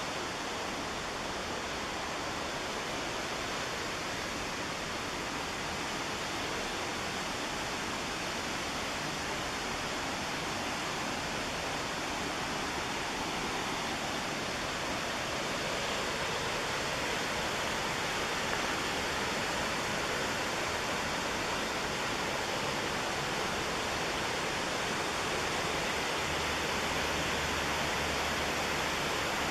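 Steady rushing of the McKenzie River's falling and tumbling whitewater, an unbroken wash of water noise that grows slightly louder toward the end.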